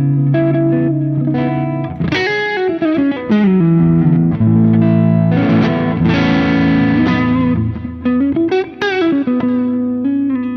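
1991 Ibanez Universe UV7P seven-string electric guitar played through an amp on the split neck and middle pickups. It plays sustained chords and single notes, with string bends about two seconds in and again near the end.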